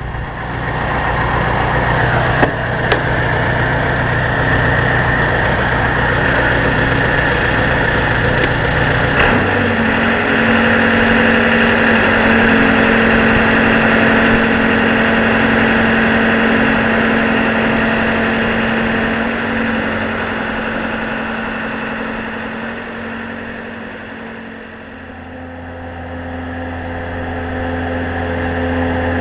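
Wooden lobster yacht's inboard engine running under way, a steady hum. The engine note changes about nine seconds in, as the low rumble drops away and a higher steady hum takes over, and deepens again near the end.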